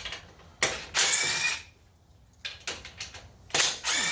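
Power drill-driver running out the valve cover bolts on a twin-cylinder Briggs & Stratton engine, in two whining bursts about a second long, with a few clicks between them.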